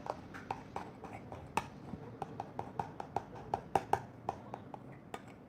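Spoon stirring a slime mixture of glue, foam and colouring in a pot, clicking irregularly against the pot's sides several times a second.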